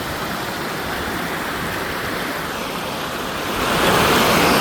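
Rushing river water, a steady wash of noise that grows louder about three and a half seconds in.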